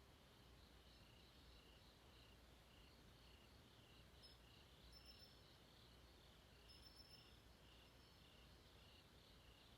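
Very faint night insects, crickets chirping in a steady pulsing chorus over low background hum, with a few short, higher chirps about four, five and seven seconds in.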